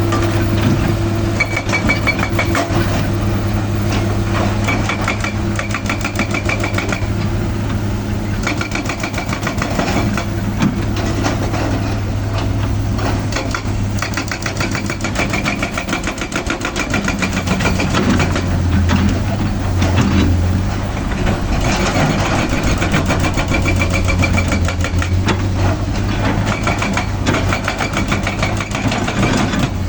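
Excavator's diesel engine running, its note rising and then settling back about two-thirds of the way through as it takes load. Repeated short clanks and knocks run through it, and a high whine comes and goes.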